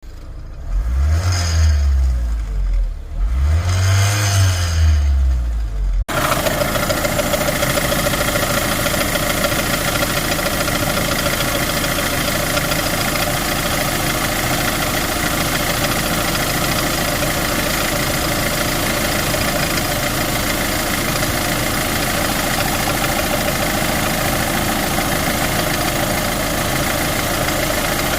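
Renault Master 2.3 dCi four-cylinder diesel engine running, heard close to the accessory belt drive, which is making a strange noise. For the first six seconds there are two low swells that rise and fall; after a sudden change it runs at a steady idle with steady tones over the engine sound.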